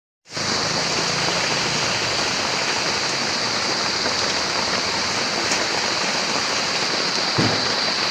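Steady rain falling outside, a dense even hiss that comes in abruptly just after the start, with a single low thump about seven seconds in.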